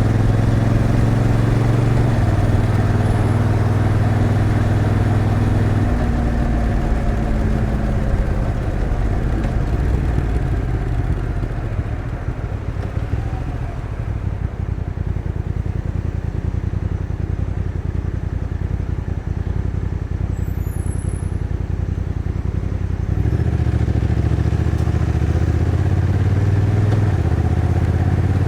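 Honda NT1100's 1,084cc parallel-twin engine running as the motorcycle is ridden. The engine note is strong at first, drops back and is mixed with more road and wind noise through the middle, then pulls strongly again near the end, where the pitch steps once.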